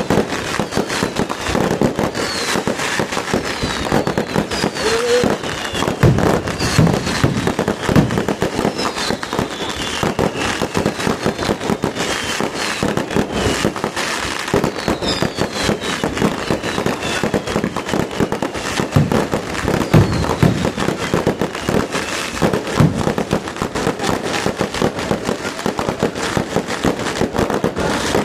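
Fireworks going off without a break: a dense rapid crackle of firecrackers, with heavier bangs every few seconds and many short whistles falling in pitch.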